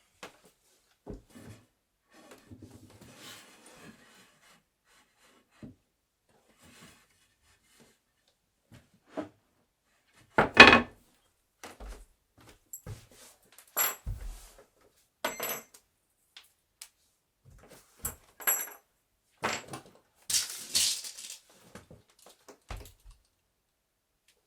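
Wooden bed being assembled: scattered knocks and thuds of wooden parts, with light metallic clinks, irregular and separated by pauses. The loudest knock comes about ten seconds in, and a longer scraping rustle follows near twenty seconds.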